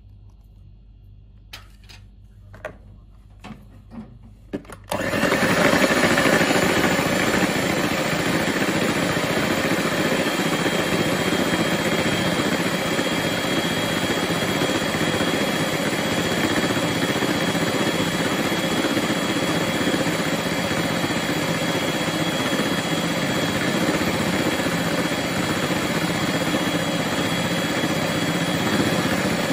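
A few light clicks, then about five seconds in an electric hand mixer switches on and runs steadily with a faint whine, its wire beaters whisking a thin, foamy egg mixture in a plastic bowl.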